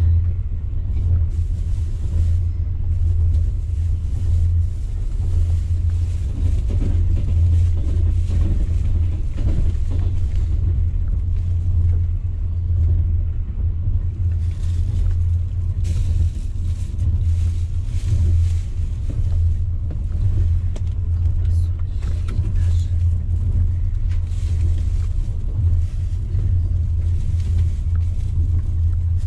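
Steady low rumble of a moving passenger train, heard from inside the carriage, with faint irregular clicks and rattles over it.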